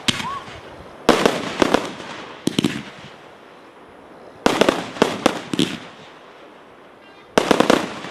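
Aerial fireworks bursting overhead in quick volleys of sharp bangs, several reports to each volley, with short lulls between.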